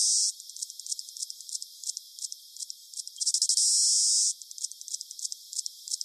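Alarm clock squawker cicada calling: a high-pitched song of rapid, irregular ticks broken by a loud steady buzz of about a second, one ending just after the start and another beginning about three seconds in.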